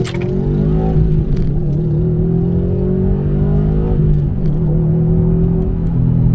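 Modified 2020 Subaru WRX STI with an AWE aftermarket exhaust accelerating, its turbocharged flat-four climbing in pitch. About four seconds in the pitch drops and then climbs again, as at an upshift, and it falls away near the end.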